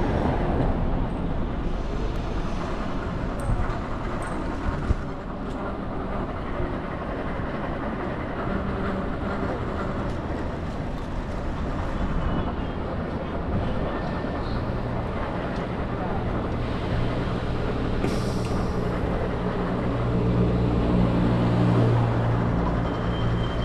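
City street traffic noise with the low hum of a heavy vehicle's engine, growing louder about twenty seconds in, and voices of passers-by.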